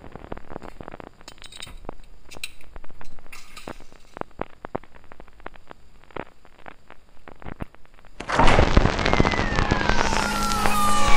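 Glass bottles and jars clinking and knocking against refrigerator shelves as items are moved about. About eight seconds in, loud rock music with drums starts abruptly and takes over.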